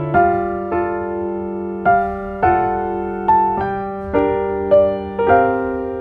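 Background music: a slow piano melody, single notes struck about once or twice a second over a held lower note.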